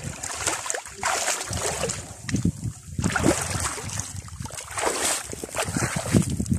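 Gusts of wind buffeting the microphone, rising and falling, with water splashing as a person wades out of a shallow pond.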